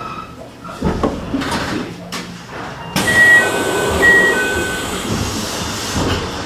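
Commuter train doors closing: a sudden clatter of the doors starting to slide, with a two-tone door chime sounding twice in alternating high and lower notes.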